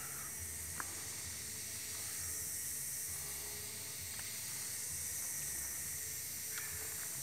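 Steady outdoor ambience: a high, even hiss with a low rumble coming and going and a few faint ticks.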